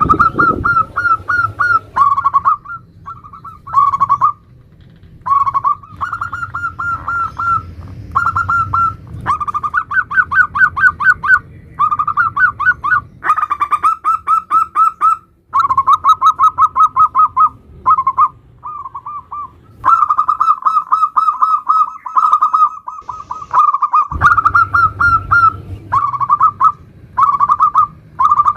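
Zebra dove (perkutut) cooing over and over in 'nutut' style phrases, each a quick rolling run of short coo notes, with brief pauses between phrases. A sharp click sounds right at the start, over a faint low hum.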